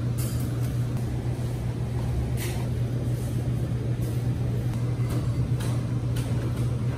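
A steady low hum, like an idling engine or a ventilation unit, under a few light clinks of a metal spoon against ceramic dishes.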